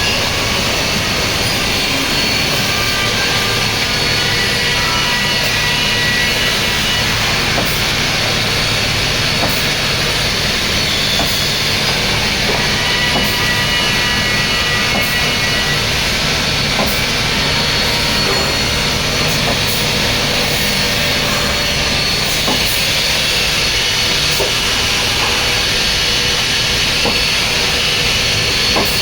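Hirzt F10 CNC panel boring machine running: a steady mechanical noise with a constant hiss and a few held tones, and faint ticks scattered through it.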